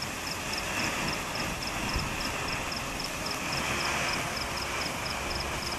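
Ground firework fountain ('Tom and Jerry' cracker) burning with a steady rushing hiss as it sprays red flame and sparks.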